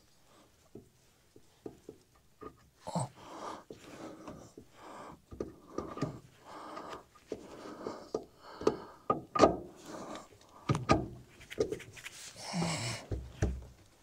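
Irregular knocks and clinks of a hydraulic steering cylinder being worked into its mount at the front axle of a 1975 Ford 550 backhoe, with a person's hard breathing from the effort.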